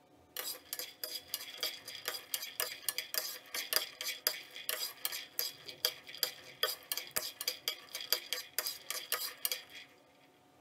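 Steel ladle stirring peanuts as they dry-roast in a pan: rapid clicking and rattling of nuts and ladle against the pan, stopping shortly before the end.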